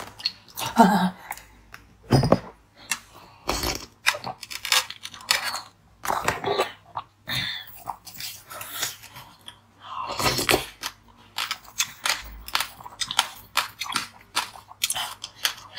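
Ice crunching and chewing, mixed with a metal spoon clicking and scraping against a bowl of ice: a dense, irregular run of sharp cracks and crackles.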